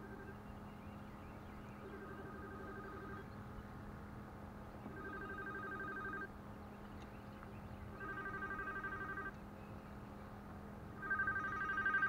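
Mobile phone ringing: a warbling two-tone ring about a second and a half long, repeating every three seconds, each ring louder than the one before.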